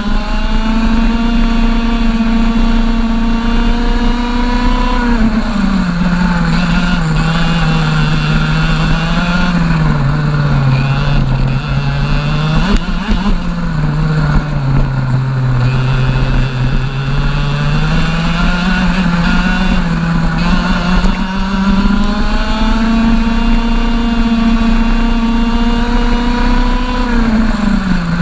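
A racing kart's 125cc single-cylinder two-stroke TAG engine, heard from on board, running hard: its pitch holds high on the straights and drops each time the driver lifts for a corner, then climbs back again. A brief knock near the middle.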